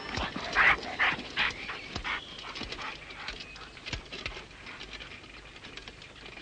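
A dog barking: a quick run of barks in the first two seconds or so, then growing fainter.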